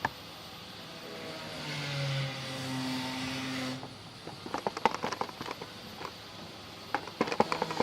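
Wet clicking and popping of runny homemade slime being stirred and squeezed, in quick clusters about halfway through and again near the end. Before that, a steady low hum with hiss lasts a couple of seconds.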